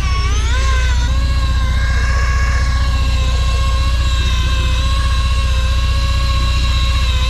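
Electric fishing reel's motor whining as it winds in line under load, most likely with a hooked fish on. Its pitch dips and recovers about a second in, then holds steady. A boat engine drones low underneath.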